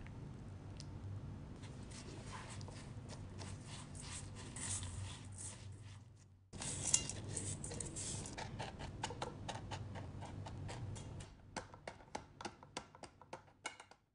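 Buttered dark cookie crumbs are worked in a stainless steel bowl with many small scraping clicks. After a break they are tipped into a round metal cake tin with a dry rattling pour and pressed down, with a run of quick light taps near the end.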